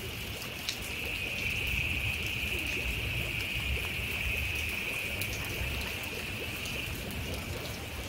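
Heavy rain pouring onto flooded ground and foliage, a steady hiss of falling water with scattered drop ticks. A steady high-pitched drone runs above the rain and drops away near the end.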